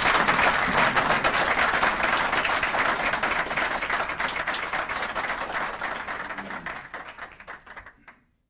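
Audience applauding, a dense patter of many hands clapping that fades away over the last few seconds.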